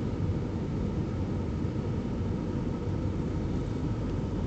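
Steady low rumble of an Airbus A320's engines and rushing air, heard inside the passenger cabin as the airliner descends on approach. A faint steady hum sits above the rumble.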